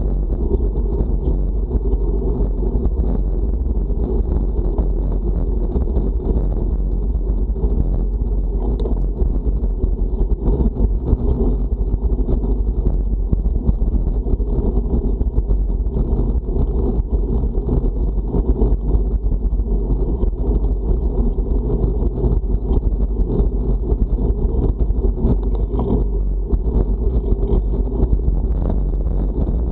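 Wind rushing over the microphone of a camera on a moving road bike: a steady, low rumble.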